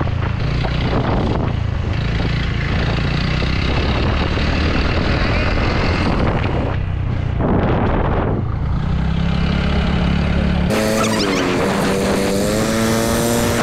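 A motor vehicle's engine running steadily while under way, with wind and road noise. About eleven seconds in it cuts off abruptly and music with a held, wavering melody takes over.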